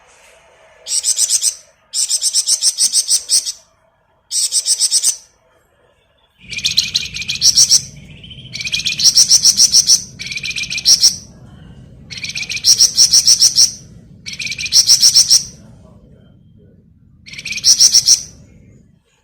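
A flamboyan songbird singing a rapid, high-pitched rattling trill ('ngebren'). It comes in about nine bursts, each around a second long, with short pauses between.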